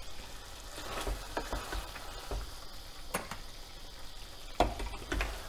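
Wooden spatula stirring thick chicken gravy in a steel pot, the gravy sizzling over the flame. A few sharp knocks of the spatula against the pot, the loudest near the end.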